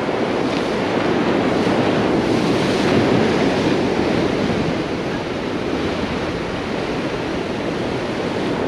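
Ocean surf breaking and washing over jetty rocks in a continuous rush, swelling a little about three seconds in and then easing off.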